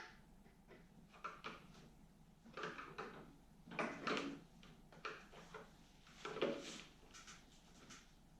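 Irregular clicks and short scrapes of plastic on plastic as a snowblower's plastic choke lever is worked and pried off its plastic mount, in several separate bouts with the loudest a little past the middle.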